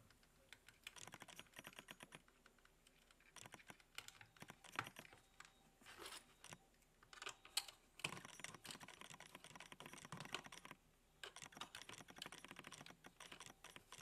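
Faint, irregular small clicks and light scraping of fingers handling thin wires at a plastic screw-terminal block, as a siren cable is connected to the alarm unit.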